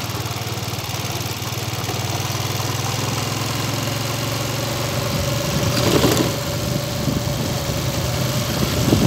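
Vehicle engine running steadily at low speed, a low even hum heard from on board while driving a dirt road, with a brief louder noisy rush about six seconds in.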